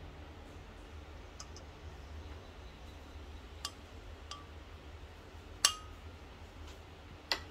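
Metal spoon clinking against a double-walled glass mug about four times, the loudest clink about two-thirds of the way through and ringing briefly; a low steady hum underneath.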